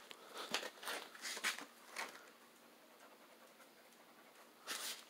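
Faint panting: several quick breathy puffs over about the first two seconds, then one more near the end.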